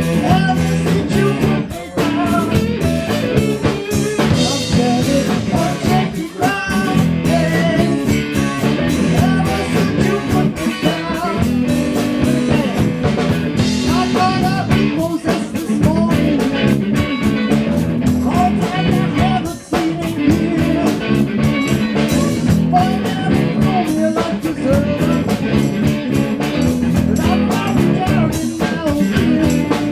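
Live band music: electric guitars played over a drum kit in a blues-rock number.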